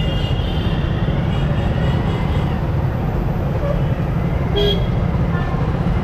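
Yamaha R15M motorcycle on the move: steady low rumble of engine and road noise. A short vehicle horn toot comes about two-thirds of the way in.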